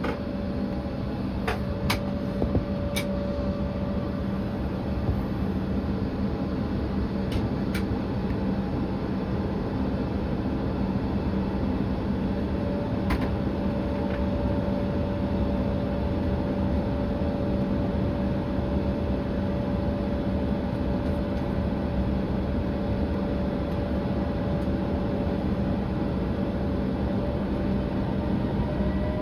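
Airliner cabin noise from a regional jet with its engines at idle: a steady hum with a constant whine, and a few faint clicks. At the very end the engine whine starts to rise in pitch as the engines begin to spool up.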